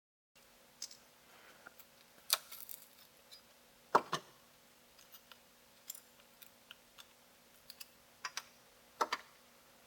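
Scattered sharp clicks and short scrapes of a paint scraper prying at an iPad's cracked glass digitizer and its adhesive, loudest about four seconds in and again near the end, over a faint steady hum.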